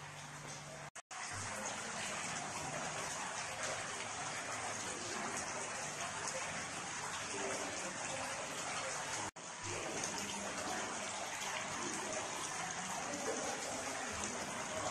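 Indoor tiered stone fountain splashing steadily into its basin, with a brief dropout about a second in and another just past nine seconds.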